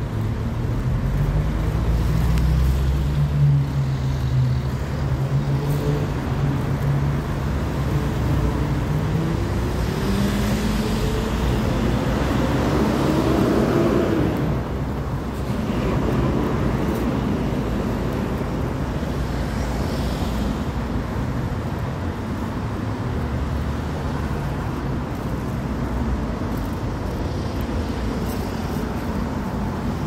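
Road traffic noise with wind blowing on the microphone. A vehicle's engine note climbs in pitch from about ten seconds in, then drops away near fifteen seconds.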